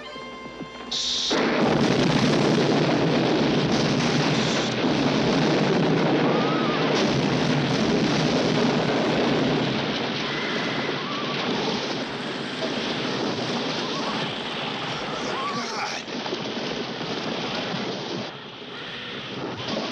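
Film soundtrack of a bridge being blown up with explosive charges. The blast starts suddenly about a second in, and a loud, continuous roar of explosion and falling debris follows, easing a little near the end.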